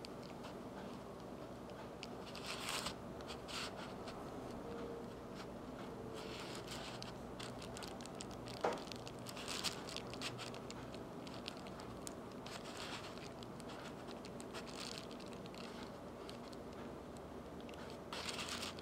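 Faint handling sounds: a plastic radar detector mount with suction cups being picked up and turned over on a paper envelope, giving scattered light rustles and a few soft clicks over quiet room tone.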